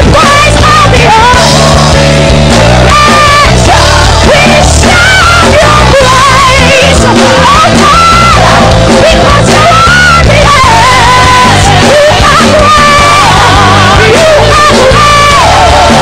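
Gospel choir singing loudly with a female lead vocalist and instrumental backing, the voices wavering with vibrato over a steady bass line.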